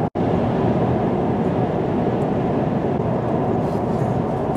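Steady road and engine noise heard inside a truck's cabin cruising at highway speed, with a momentary dropout right at the start.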